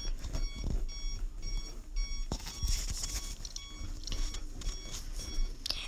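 Self-balancing hoverboard beeping: short high electronic beeps about twice a second, with a pause and a single knock a little past two seconds in. The beeping comes from a board that its rider has just called dead, i.e. a flat-battery warning.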